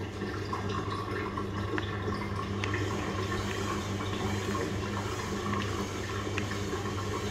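Steady whirring of a kitchen fan: a constant low hum under a rushing hiss, with a few faint ticks.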